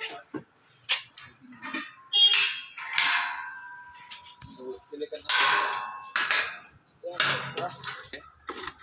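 About six loud, sharp knocks at uneven intervals, several of them leaving a short ringing tone that fades away.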